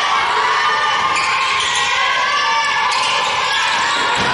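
Basketball game sounds on a wooden gym court: the ball bouncing on the hardwood amid steady, echoing noise from players and bench in a large hall.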